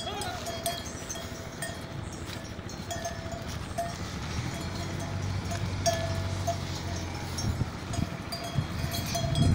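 Bells on grazing livestock give short ringing notes now and then. A low rushing noise grows louder from about halfway through.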